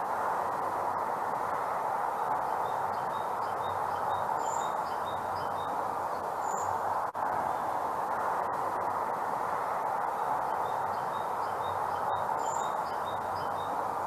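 Great tit singing its repeated two-note 'teacher, teacher' song in two runs of short, quick high phrases, over a steady background hiss.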